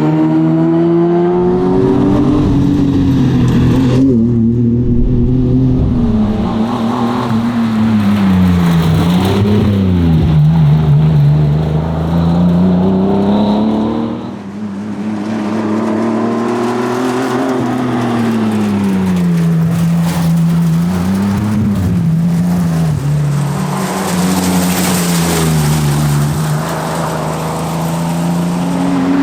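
1979 Ford Cortina Mark IV's engine driven hard on a rally stage: revs climb and fall again and again through gear changes and corners, with a brief lift-off about halfway through.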